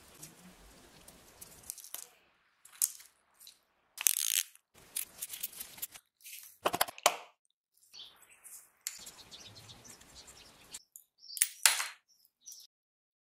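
Small metal carburetor parts and hand tools clinking, scraping and rattling as the carburetor is taken apart. The sounds are short and irregular, with silent gaps between them.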